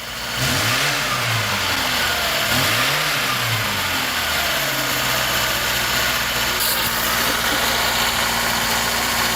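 Zhiguli (VAZ) car engine revved twice, the pitch rising and falling back each time over about a second, then left idling steadily.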